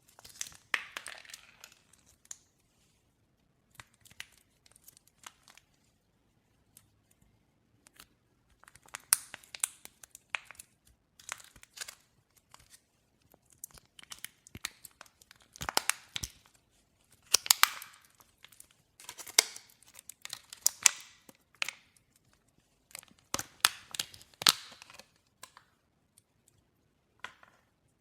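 Glossy slime being squished and stretched: bursts of sticky crackling and popping clicks, with short quiet pauses between.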